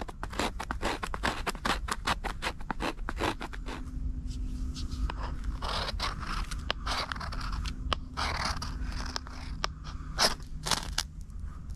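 Knife blade scraping birch bark into fine tinder shavings for a fire. The strokes come in quick succession for the first few seconds, then as longer, rougher scrapes.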